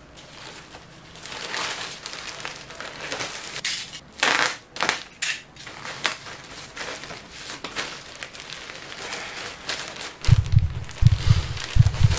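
Plastic courier mailer bag crinkling and rustling as it is handled and opened, with a few sharp, louder crackles about four to five seconds in. Several deep, muffled thumps come near the end.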